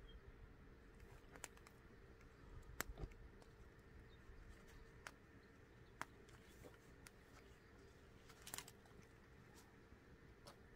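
Faint, sparse pops and crackles from a small wood campfire, a few sharp snaps spread over near silence.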